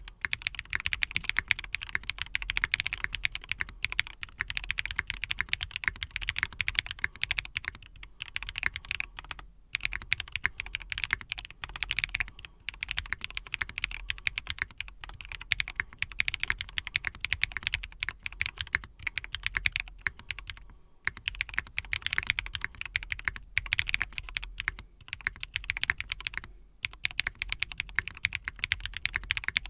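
Fast, continuous typing on a freshly built Intro S100 mechanical keyboard, a sound test of its keystrokes, broken by a few brief pauses.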